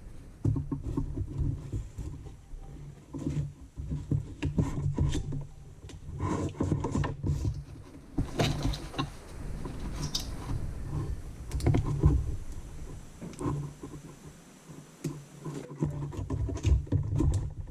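Hands working a rubber steering rack boot and a zip tie: irregular rubbing, scraping and small clicks, with occasional knocks.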